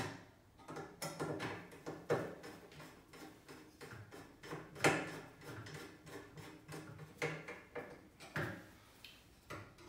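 A hand screwdriver driving screws into the top of a black metal wire document-tray frame, making a run of irregular clicks and small metal rattles as the screws are turned and the frame shifts.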